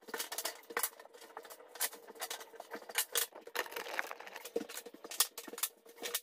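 Irregular light clicks and knocks of handling, from quarter round trim and the handheld camera being moved, over a faint steady hum.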